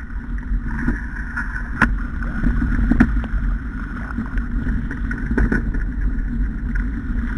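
Steady rumbling, rattling noise of travelling fast along a wet trail behind a running dog team, with a few sharp knocks about two, three and five and a half seconds in.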